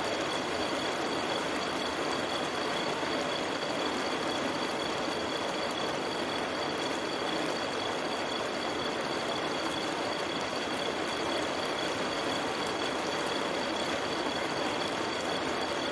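Steady rain falling in a forest: an even, unbroken hiss of raindrops, with two steady high-pitched tones running through it.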